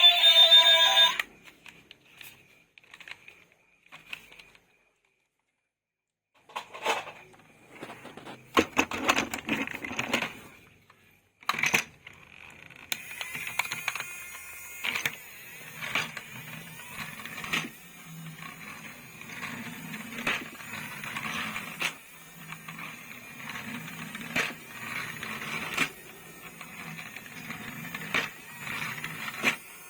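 Irregular clicks, taps and rattles of hard plastic toys and packaging being handled, coming more often over a steady low hiss in the second half. A snatch of music cuts off about a second in.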